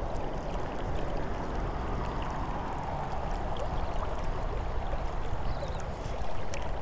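River water flowing past, a steady rushing with a low rumble beneath.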